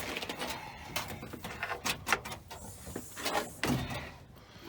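A locked door being tried and rattled: a series of clunks and knocks, the loudest about two seconds in and again near the end.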